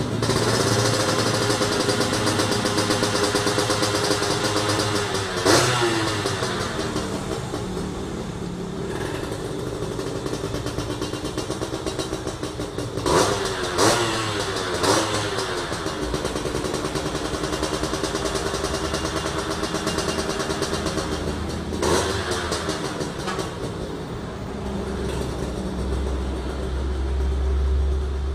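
Yamaha F1ZR's two-stroke single-cylinder engine running on the stand through an aftermarket 'udang' (lobster) exhaust, with the throttle blipped several times. Each rev rises sharply and falls back: one about five seconds in, three in quick succession around the middle, and one more about three-quarters of the way through.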